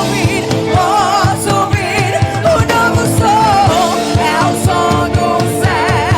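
Worship music: a band with sustained keyboard chords and a steady beat, with a voice singing a wavering, ornamented melody over it.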